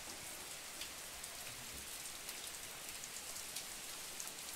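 Heavy rain falling steadily onto trees and a flooded dirt yard: an even hiss dotted with many small sharp drop ticks.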